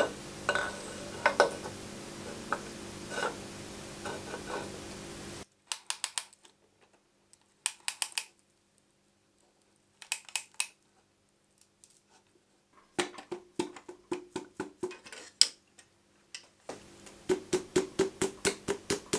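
Metal clicks and clinks as a piston with its connecting rod and a ring compressor are handled against the engine block, coming in short bursts with silent gaps between them. Near the end there is a quick run of light, even taps as the piston is driven down through the ring compressor into its bore with a tool handle.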